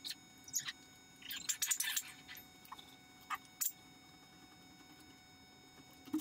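Kitchen knife cutting through soft, set marshmallow and clicking and scraping against a ceramic plate: a few short clicks and scrapes over the first four seconds, the busiest patch about one and a half to two seconds in.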